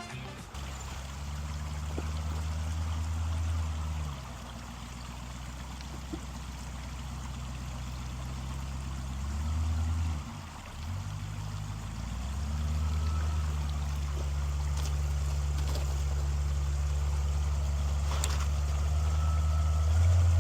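1973 Chevrolet K20 truck's engine running at low revs under load as it crawls over rocks, a low drone that eases off a few seconds in, swells again near the middle and holds stronger through the second half.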